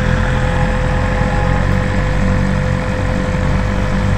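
BMW M1000RR's 999 cc inline-four engine on its stock exhaust, running at low speed in a steady low rumble.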